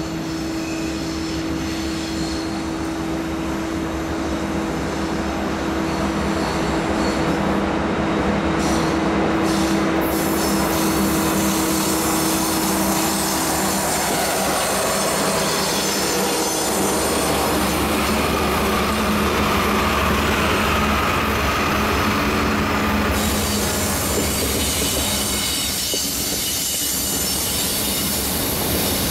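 Freight train going by: the diesel engine of a Canadian Pacific EMD SD60 lead locomotive running as it comes up and passes, followed by the trailing locomotives and then the steady noise of autorack cars rolling over the rails. It gets louder over the first several seconds, then holds steady.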